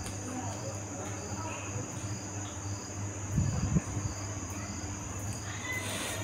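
Crickets chirping: a steady high trill with a pulsing chirp repeating about twice a second, over a low hum. A few low handling bumps come about three and a half seconds in.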